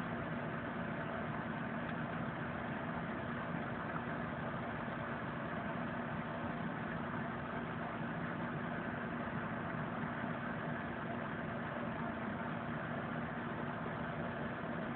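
Steady background hum and hiss with a constant low tone, with no change or sudden sounds.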